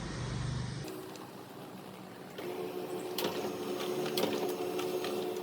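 Canon imageCLASS MF221D laser printer running a print job. About two and a half seconds in its motors and rollers start a steady whirr, with scattered clicks as the page feeds through.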